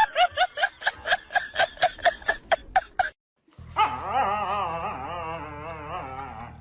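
A dog yapping rapidly, about four high yips a second for some three seconds. After a short silence a single long, wavering cry follows, with a steady low hum under it.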